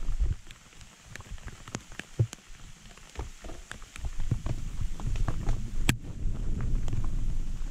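Mountain bike rolling fast down a rocky, gravelly singletrack: tyres crunching over loose stones with scattered clicks and rattles over a low rumble, which gets louder about four seconds in. A sharp click stands out near the end.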